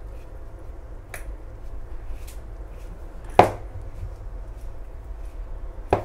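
Hand mixing and rubbing flour with a little water and oil in a plastic bowl, a soft steady rustle. It is broken by a few short knocks, the loudest just past the middle and another near the end.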